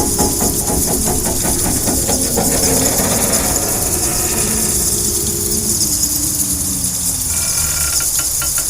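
Horror sound-effect soundscape: a steady hiss over a low mechanical rumble, with rapid clattering clicks for the first few seconds and a tone that slides slowly downward in the middle.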